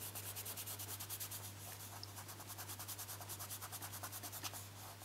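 Quick, even back-and-forth rubbing by hand on paper or card, about eight strokes a second.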